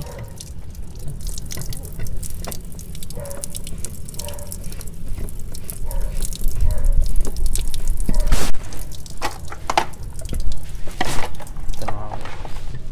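Water dripping and splashing while plastic water-filter housings are handled and fitted, with many irregular clicks and knocks of plastic and a low rumble in the middle, the loudest knock about eight seconds in.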